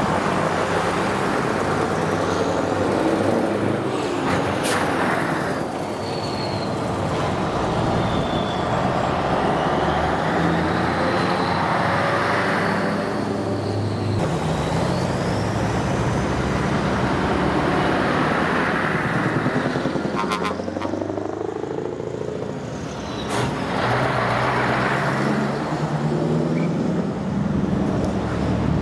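Classic Scania trucks driving past one after another, their diesel engines swelling and fading as each one goes by. Two brief air hisses cut through.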